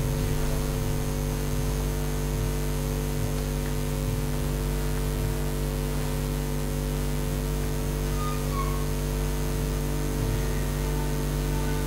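Steady electrical hum with a stack of even overtones over a constant hiss, the kind of mains buzz and noise carried by a hall's amplification system.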